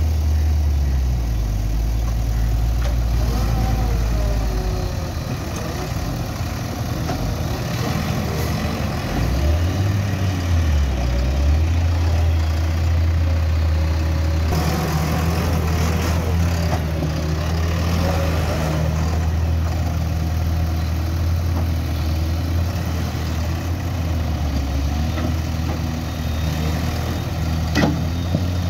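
Diesel engine of a JCB 3DX backhoe loader running while loading mud, its engine note rising about ten seconds in and holding higher as the machine works. A single sharp knock near the end.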